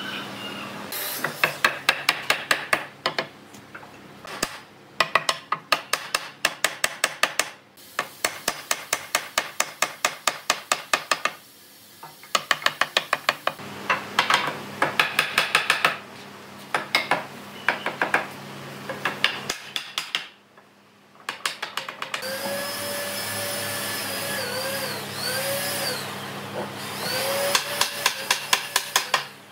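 Woodworking tools at work: repeated bursts of rapid hammering, several sharp strikes a second with short pauses between runs. In the last third a power tool's motor runs, its pitch dipping and recovering several times as if under load.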